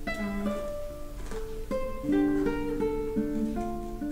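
Background music: an acoustic guitar picking a melody, one plucked note after another.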